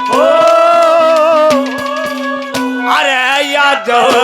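Live Haryanvi ragni music: a long, wavering held note over a steady drone, with regular drum strokes, and another wavering melodic passage about three seconds in.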